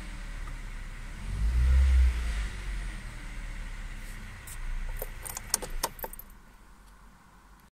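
Car engine idling, heard from inside the cabin, with a brief swell in engine sound about one and a half seconds in. About five seconds in, the ignition key is turned with a jangle of keys and the engine shuts off, leaving the cabin much quieter.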